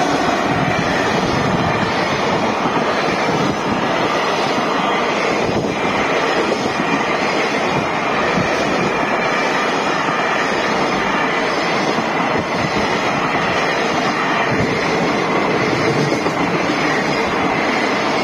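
Freight train running past over a level crossing: a steady, loud rumble of wagons on the rails.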